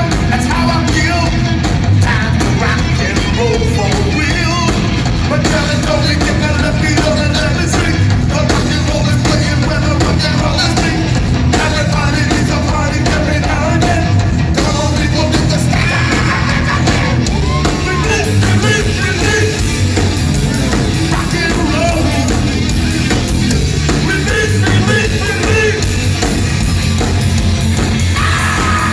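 A punk rock band playing loud and live, with a singer's vocals over the full band.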